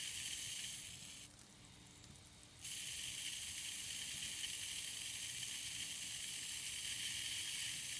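Garden hose spraying water, a steady high hiss. The spray sound drops away just after a second in and comes back at about two and a half seconds.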